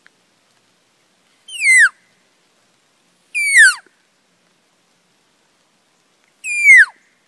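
Three cow-elk mews: short calls, each about half a second long and sliding down in pitch, spaced a couple of seconds apart.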